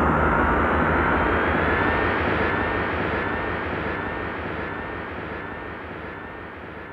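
A sustained ringing drone with a few slowly rising tones over a noisy wash, fading out steadily.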